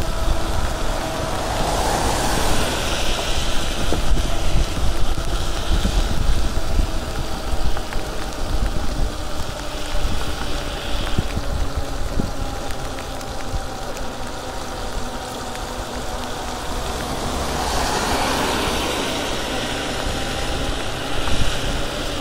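Riding an e-bike in the rain: wind rumble on the microphone over a steady hiss of tyres on a wet road. The hiss swells twice, about two seconds in and again near the end, as cars pass on the wet road.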